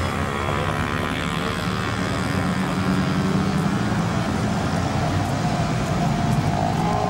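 Street traffic: a steady low engine rumble from passing vehicles, with a higher engine note coming up in the last couple of seconds.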